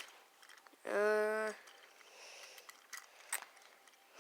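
A voice making a single imitated hiccup, one short, steady-pitched vocal sound about a second in, with a few faint clicks of toys being handled.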